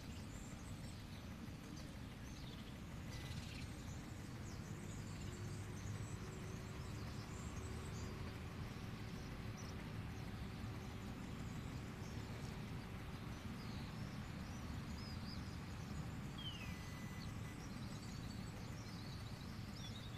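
Outdoor ambience: scattered bird chirps and short twittering calls over a steady low background rumble.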